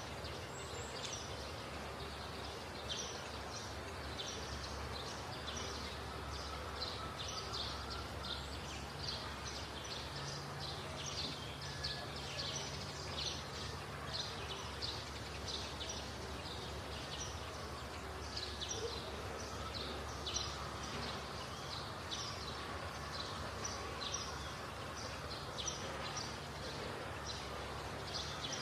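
Outdoor ambience of birds chirping steadily, many short high chirps a second, over a steady low hum.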